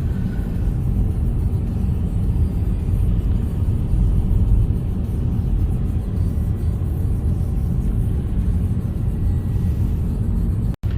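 Steady low road rumble of a moving car heard from inside the cabin: tyre and engine noise at cruising speed, cut off for an instant near the end.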